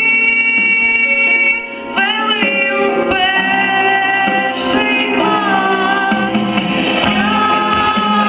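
A young woman singing a slow song into a microphone over instrumental accompaniment, holding long notes with vibrato. There is a short breath between phrases a little under two seconds in.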